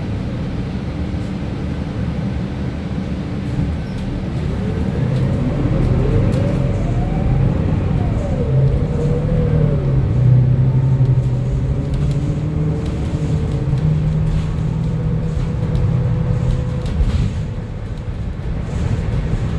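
Inside a 2025 Gillig BRT+CNG natural-gas transit bus under way: the engine and drivetrain run with a steady low drone, and a whine rises and then falls in pitch about four to ten seconds in.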